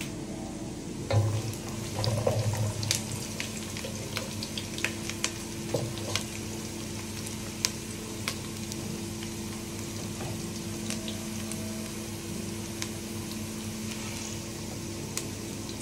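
Sliced garlic, onion and curry leaves frying in shallow oil in a pot: a steady sizzle with many small pops and crackles scattered throughout, over a steady low hum. A few low knocks in the first few seconds.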